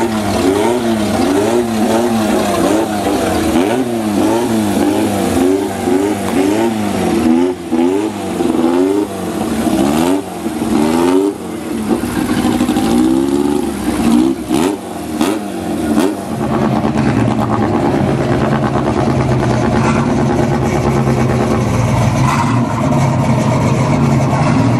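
Dodge Ram pickup truck's engine revved repeatedly, its pitch rising and falling under a second per blip, with a few sharp pops. After about 16 seconds it settles into a steady low running note.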